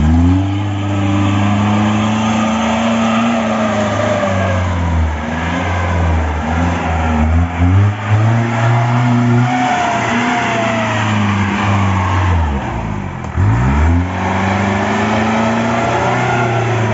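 Mahindra jeep's diesel engine revving hard under load on a muddy climb, the pitch rising and falling with the throttle. There is a sharp rev-up near the start and another about 13 seconds in.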